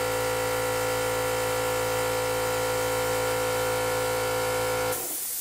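Home DIY air compressor running, a steady hum with hiss. About five seconds in the motor tone stops and a short burst of hiss is left before the sound cuts off.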